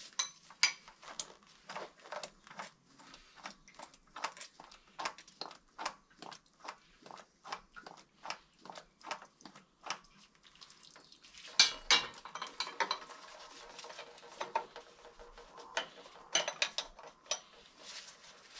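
Hand primer on a Zetor 4911 diesel's fuel pump being worked to bleed fuel through, clicking steadily about three strokes a second. After about ten seconds the clicking stops and gives way to a stretch of scraping and rattling, then a few more clicks near the end.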